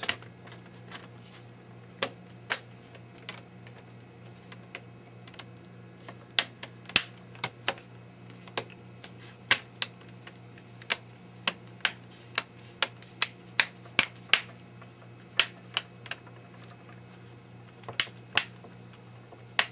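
The plastic screen bezel of an HP Chromebook 14 snapping onto the display lid as it is pressed home around the edges: a long, irregular run of sharp clicks from the clips, densest in the middle.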